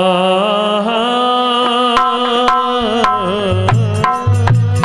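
Devotional bhajan music: a long held, wavering melodic note over harmonium, with hand-drum strokes coming in about three seconds in and falling into a rhythm.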